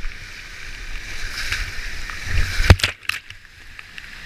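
Whitewater rushing steadily around a creek kayak as paddle strokes splash in the current. It swells to one loud splash about two and a half seconds in, after which the rush briefly drops away.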